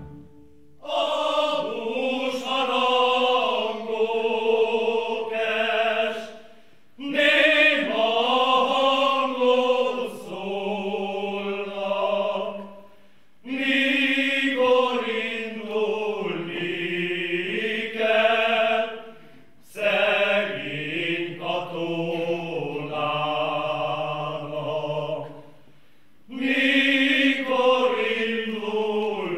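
Men's choir singing a Hungarian folk song unaccompanied, in about five slow phrases with a short breath between each.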